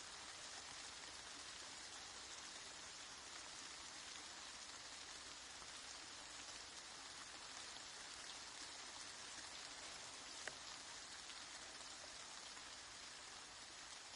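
Steady, soft rain falling: an even hiss of many small drops, with one sharper drip about ten seconds in.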